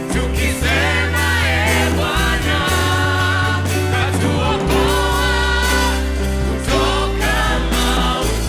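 Gospel worship music: a group of voices singing over held bass notes from the band.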